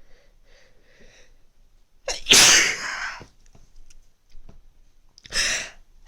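A person sneezing from a cold: faint catching breaths in the first second, one loud sneeze about two seconds in, then a shorter loud burst near the end as the next sneeze comes on.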